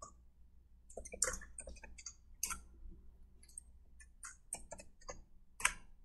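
Faint typing on a computer keyboard: a run of irregular keystrokes, with one louder keystroke near the end.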